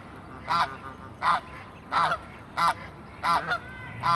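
An adult duck or goose gives a run of harsh honking calls, about six, evenly spaced. They are agitated calls from a parent bird guarding its young against people nearby.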